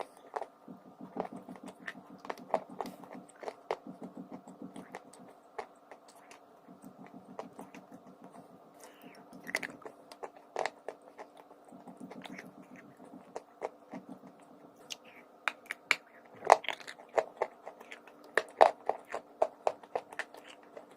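A person biting and chewing crunchy pieces of edible chalk, giving repeated sharp crunches with muffled chewing between them; the crunches come faster and louder in the last few seconds.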